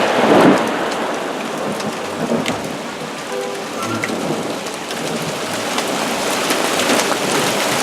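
Heavy rain pouring down steadily, with scattered sharp ticks of drops or hailstones striking.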